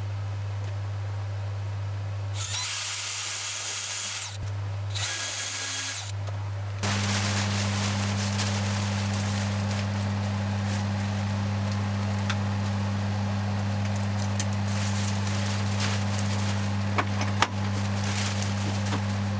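Cordless drill boring into an ash burl blank in two short whining bursts a few seconds in, the second shorter. Under it runs a steady low hum, which gets louder about seven seconds in.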